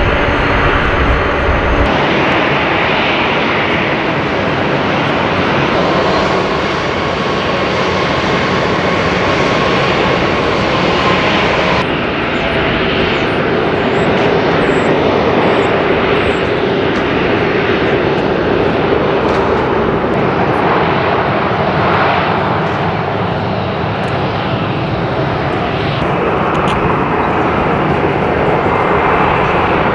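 Jet engines of a Boeing 737 Classic freighter running steadily at low taxi power, a continuous rush with a faint held hum. The tone changes abruptly a few times.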